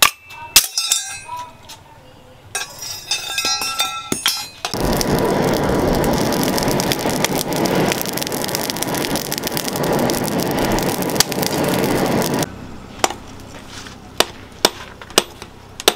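Several ringing hammer-and-chisel strikes and clinks on a steel motorcycle disc brake rotor. About five seconds in, a steady loud rush of air from the forge blower into the charcoal fire takes over for about eight seconds, then cuts off suddenly, leaving a few light clinks.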